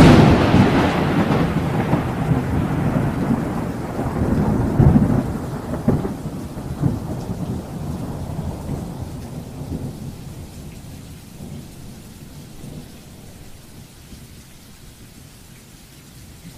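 Thunderstorm: a thunderclap breaks sharply at the start, then rolls and rumbles, swelling again a few seconds in, and slowly dies away over about ten seconds, leaving the steady hiss of rain.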